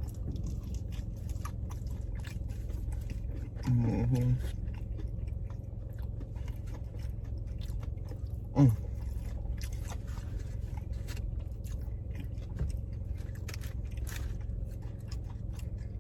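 Close-up chewing and biting of fried seafood, with many small crunches and wet mouth clicks over a steady low hum. There is a short hum of the voice about four seconds in and a brief loud falling vocal sound a little past halfway.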